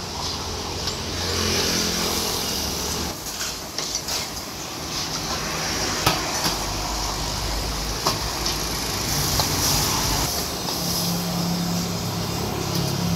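Road traffic passing close by, with engine rumbles that swell and fade, over a steady hiss. A few sharp clinks of metal cookware about midway.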